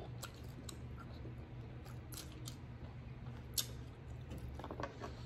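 Eating sounds at a table of king crab: scattered sharp clicks and crackles of crab shell being picked at and broken, the loudest about three and a half seconds in, with chewing.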